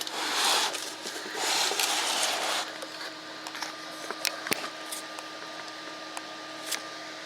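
Two hissing, rustling noises of about a second each, then a few light clicks and taps, over a steady low hum: parts being handled on the workbench during an engine teardown.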